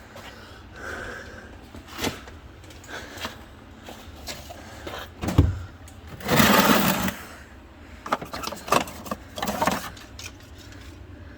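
Rummaging through a tool drawer: scattered clicks and knocks of metal tools, a thump about five seconds in, then a scraping rattle lasting about a second, and more clicks after it.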